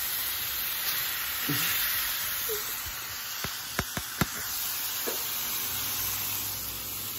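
Shredded beef sizzling in a screaming-hot skillet with oyster mushrooms and onions: a steady frying hiss from meat searing at high heat. Four sharp clicks come around the middle.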